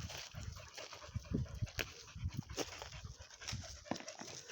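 Dogs panting, tired from running, with scattered sharp clicks and rustles mixed in.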